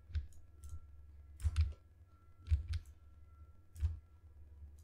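Computer mouse clicks, about half a dozen sharp clicks, some in quick pairs like a button pressed and released.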